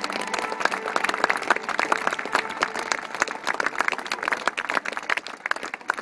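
An audience applauding: many hands clapping together.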